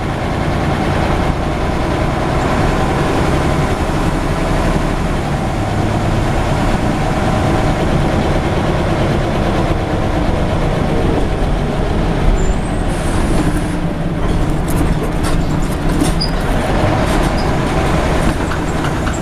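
Scania Omnidekka double-decker bus running, heard from inside the upper deck: a steady engine rumble with cabin noise, and light rattles and clicks from the fittings in the last few seconds.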